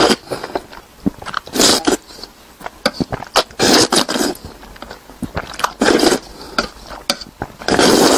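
A person slurping instant noodles (Indomie) in broth off chopsticks, in loud wet bursts about every two seconds, with small chewing clicks between.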